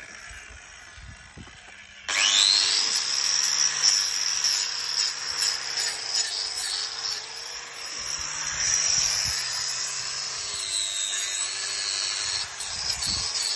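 Angle grinder starting about two seconds in, spinning up to a high whine, then grinding down an old cow's overgrown hoof. The whine dips briefly in pitch about ten seconds in.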